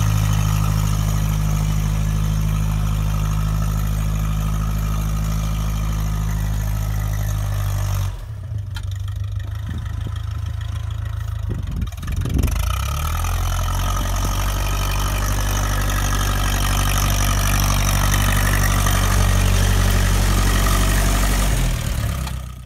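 Ferguson TEA20 tractor's four-cylinder petrol engine running steadily while it works a snow blade, with a dip of a few seconds a third of the way in before the steady engine sound returns.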